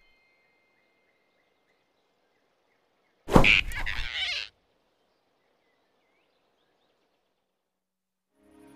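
A sudden, loud cartoon swoosh-and-grab sound effect about three seconds in, lasting just over a second with a falling pitch, as the big rabbit snatches the squirrel. Soft music fades in near the end.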